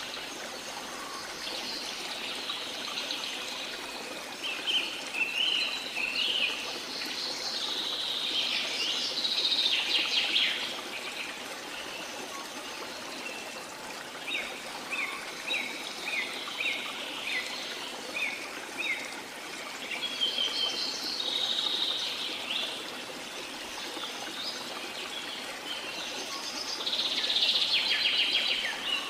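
Birds singing and chirping in repeated bursts over a steady rush of running water.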